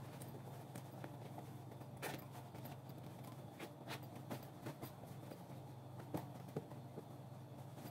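Soft rustling of cotton fabric and scattered light taps and clicks as a lined cloth zip bag is pushed right side out through its zipper opening, over a steady low hum.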